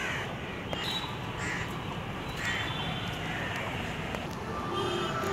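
Crows cawing a few times, about a second apart, over a steady low background rumble.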